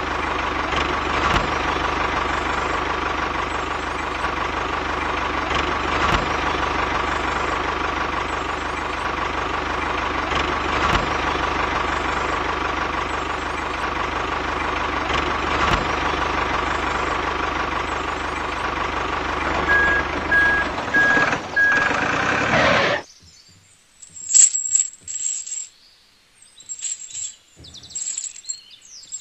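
Tractor engine running steadily, cutting off suddenly about 23 seconds in. Then a few light metallic clinks from a small steel keyring chain.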